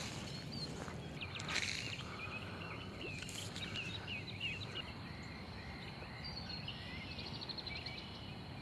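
Small birds chirping over and over, with a steady faint high insect-like tone and low outdoor background noise. A brief swish about a second and a half in.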